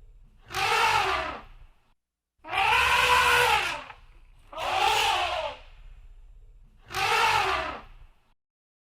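Elephant trumpeting: four separate calls of about a second each, each rising then falling in pitch.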